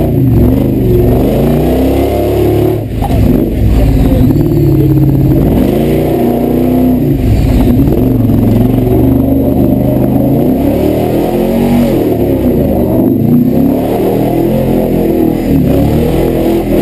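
Supercharged V8 engine of a Toyota Land Cruiser competition truck, heard from inside the cabin, revving up and down repeatedly as it is driven over a muddy off-road stage.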